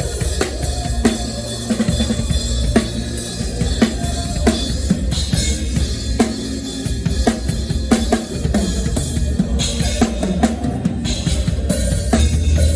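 Drum kit played live in a steady groove, with bass drum, snare and rimshot strikes, over sustained band instruments.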